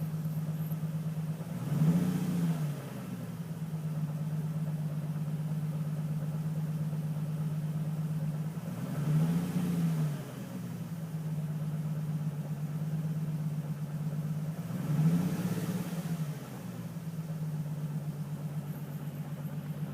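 Nissan 350Z's V6 engine idling steadily and blipped three times, each a quick rise and fall in revs. The owner suspects a misfire and a slight knock.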